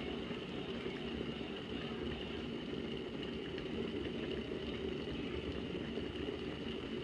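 Hamilton Beach glass-carafe cord-free electric kettle at a steady, continuous boil, the water bubbling without letup. Its automatic shut-off has failed, so it keeps boiling instead of switching off.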